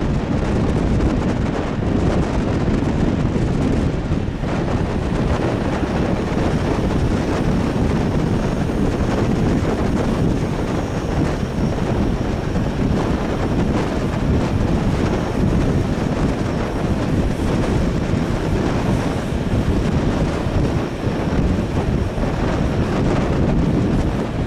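Wind buffeting a microphone held out of the window of a moving train, over the steady noise of the train running along the track.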